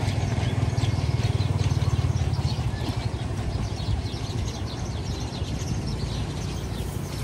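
A low motor rumble, strongest for the first two and a half seconds and then easing off, under many birds chirping.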